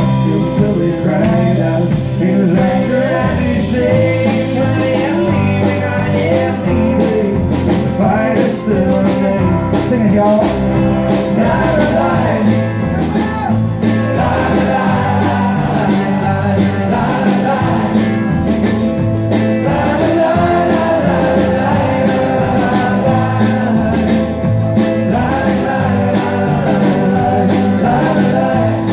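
Live acoustic folk-rock band playing: strummed acoustic guitars, mandolin and upright bass with drums, and voices singing over them.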